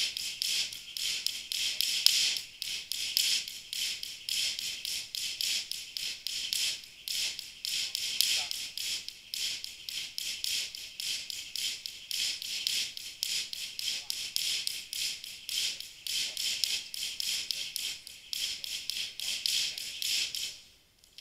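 A jump rope spinning fast and ticking on the floor, about four or five ticks a second, in steady runs with brief breaks; it stops near the end.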